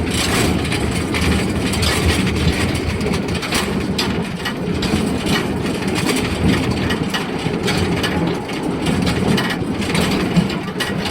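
Rumble and rattle of a narrow-gauge forest railway train running on its track, heard from a car. The wheels and coupled cars give a steady low rumble with scattered clicks and knocks.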